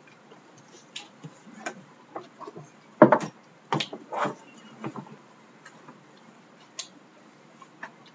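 Scattered light clicks and knocks in a classroom as students write on their small boards, with one louder knock about three seconds in.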